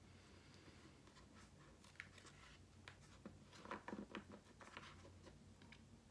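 Near silence: room tone with a faint low hum, broken by a small click about two seconds in and a short cluster of faint clicks and rustles around the middle.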